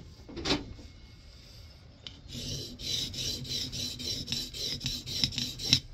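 A steel scrub-plane iron with a cambered bevel is rubbed back and forth on the fine side of a Norton oilstone wetted with WD-40, honing the edge. A single scrape comes about half a second in, then from about two seconds in a run of quick, even rasping strokes, ending on a louder stroke.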